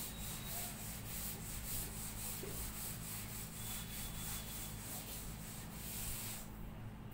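Chalkboard duster rubbing across a blackboard in quick back-and-forth strokes as writing is wiped off, easing off near the end.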